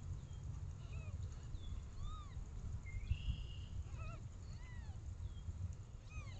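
Newborn kittens mewing in the nest: short, thin, high calls that rise and fall, several times over a steady low rumble.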